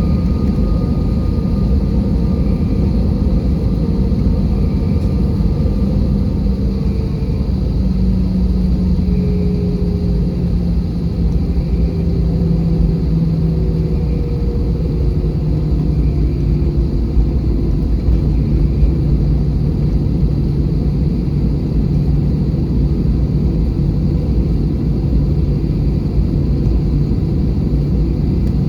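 Steady cabin rumble of an Airbus A320 in flight: engine and airflow noise, with the engines' tones slowly falling in pitch over the first half and then holding steady, as thrust is eased back.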